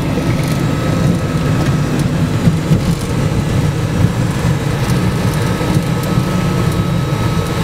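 Jet engines of a three-engine airliner running at low power while it taxis, heard inside the cockpit as a steady low rumble with a thin steady whine above it.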